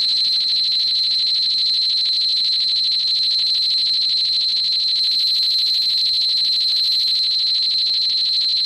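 A synthetic monster sound effect from the 1971 Hedorah film: one loud, steady, high-pitched buzzing tone with a fast pulse, like an alarm. It starts abruptly and holds evenly.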